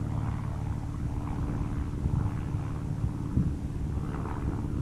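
Steady low rumble with a constant hum, and a single low thump about three and a half seconds in.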